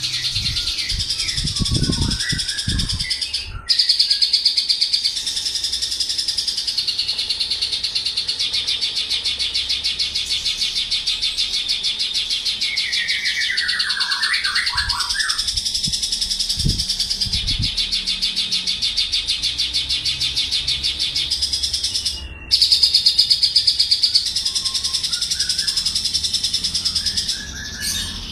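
Male Javan bush lark (branjangan) singing a long, continuous song of very rapid high-pitched trills. It breaks off briefly twice, about four seconds in and about twenty-two seconds in. Lower chirps come in briefly about halfway through, and there are a few low thumps.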